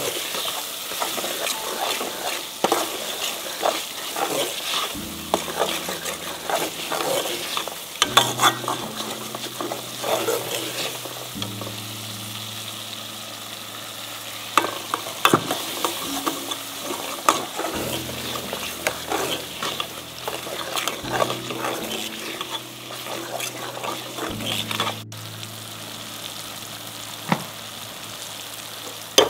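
Metal ladle stirring and scraping a thick curry paste frying in oil in a stainless steel pot: steady sizzling with frequent clinks and scrapes of the ladle against the pot. About halfway through, a little water goes in to keep the base from catching, and the frying carries on.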